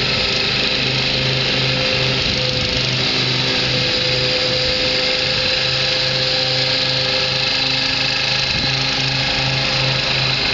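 Jacobsen 14 LT garden tractor's engine running steadily as the tractor drives across the lawn, with a low throb pulsing about three times a second.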